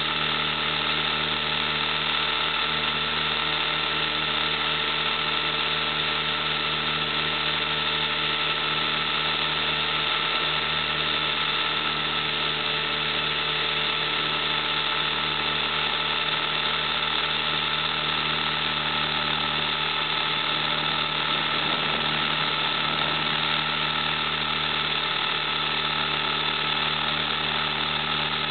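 Model camera copter's motors and rotors, picked up by its own onboard camera while it flies: a steady buzzing whine with several fixed pitches that never lets up.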